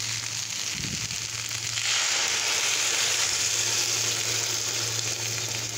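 Mixed vegetables sizzling in hot oil in a frying pan; about two seconds in, water is poured in and the sizzle turns into a loud hiss, then slowly eases as the pan fills.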